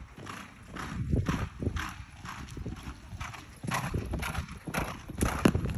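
Hoofbeats of a ridden horse running on sand, a steady rhythm of about two to three beats a second.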